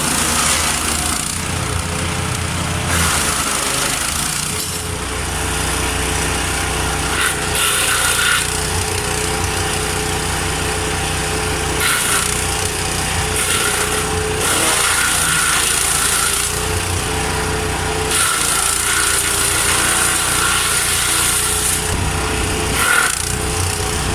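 Engine-driven wood chipper running steadily, with the grinding of branches being chipped rising and falling every few seconds as they are fed in.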